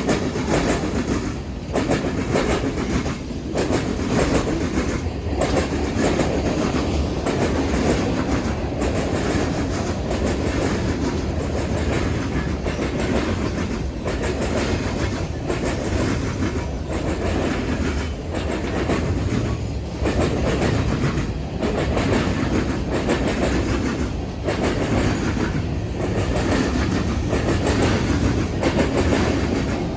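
BNSF freight train rolling steadily past, its car wheels clattering over a railroad diamond crossing in a continuous clickety-clack.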